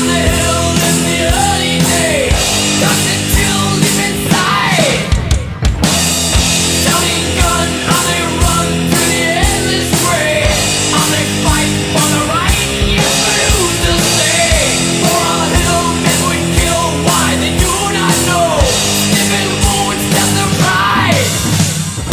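A rock song with singing, played loud, with an acoustic drum kit played along to it: regular snare and tom hits and cymbal crashes. There is a brief drop in the music about five and a half seconds in.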